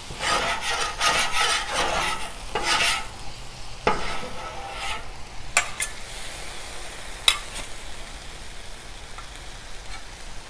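Metal spatulas scraping and pushing food across a hot steel griddle top in quick repeated strokes for the first few seconds, then a few sharp metal clacks, over a low steady sizzle of sauce on the still-hot griddle.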